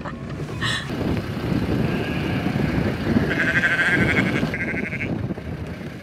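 Scottish Blackface sheep bleating: a short bleat about half a second in, then a longer wavering bleat from about two to five seconds, over a steady low rumble.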